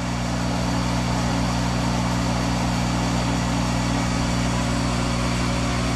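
Monarch 10EE lathe running steadily with its spindle turning in reverse at about 800 RPM, a warm-up run that pumps oil up to the spindle bearings. The sound is a steady, even hum, quiet and smooth, with no knocks.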